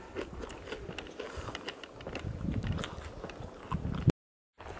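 Footsteps crunching on gritty, debris-strewn paving: a scatter of short sharp clicks over a low rumble. The sound cuts out suddenly near the end.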